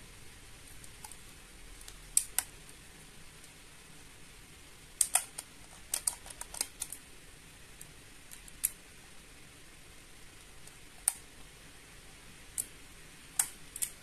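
Plastic DX Command Twin Buckle toy being handled and turned over in the hands, its parts giving a dozen or so sharp clicks and taps, several close together about five to seven seconds in.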